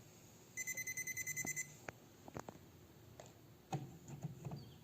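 Handheld voltage tester beeping in a rapid string of high, evenly pulsed beeps lasting about a second, followed by a few faint clicks and taps as it is handled.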